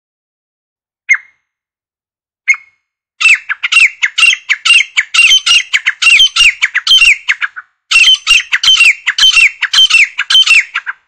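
Grey francolin (grey partridge) calling: two single sharp notes, then a fast run of repeated harsh, squawky calls that breaks off briefly past the halfway point and starts again.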